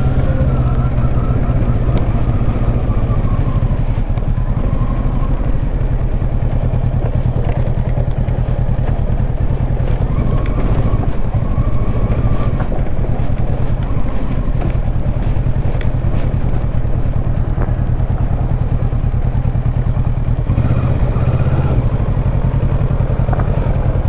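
Kawasaki Versys 650's parallel-twin engine running steadily at low speed, heard close up from the rider's position.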